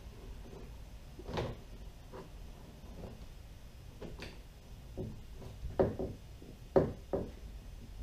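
Irregular sharp plastic clicks and knocks as fishfinder mounting hardware and its cable are handled against a plastic kayak hull, about half a dozen in all, the loudest two near the end.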